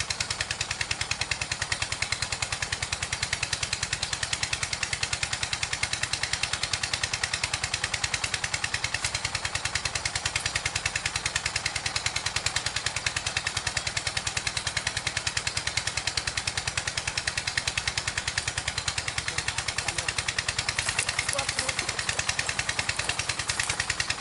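A small engine running steadily with a rapid, even chugging beat that holds the same pace throughout.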